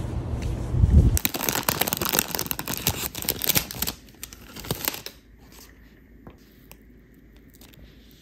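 Low outdoor rumble for about a second, then a crinkly wrapper of a madeleine being torn open and crumpled for about three seconds, with a few lighter rustles after.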